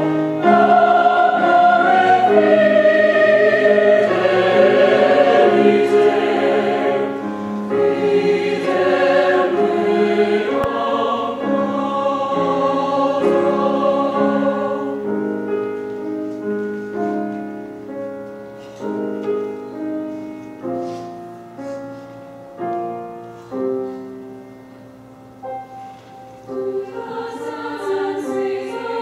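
Mixed-voice choir singing a slow choral piece with grand piano accompaniment. The full choir sings loud, sustained chords for about the first half, then softens to quiet singing over single decaying piano notes, and swells again near the end.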